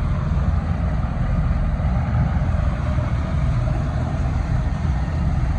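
Steady low rumble of a houseboat cruising under engine power.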